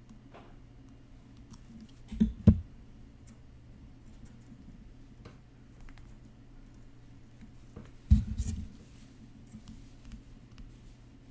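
Quiet handling of fine silver wire and needle-nose pliers working on a ring band, with faint scattered clicks and light scratches over a steady low hum. Two dull low thumps come about two seconds in, and another about eight seconds in.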